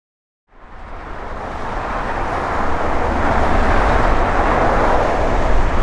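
Boeing 787-9 jet airliner on final approach, its engines heard as a steady rushing noise with a low rumble beneath. The sound starts about half a second in and grows louder over the next two seconds, then holds steady.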